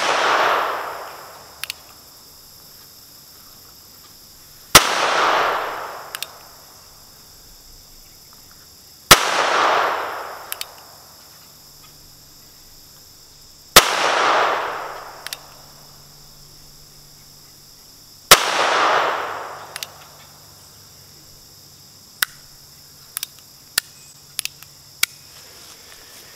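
A North American Arms .22 mini revolver firing four single shots about four and a half seconds apart, each crack followed by a fading echo. A small click comes shortly after each shot, as the single-action hammer is cocked for the next one, and a few more small clicks follow near the end.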